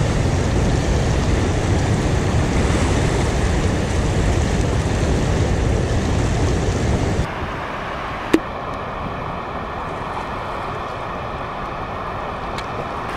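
Rushing tailwater below a dam spillway, loud and steady, with wind on the microphone. About seven seconds in the sound drops quieter; a single sharp click follows, then a steady multi-tone alarm, the dam's warning alarm that signals a rise in the water release.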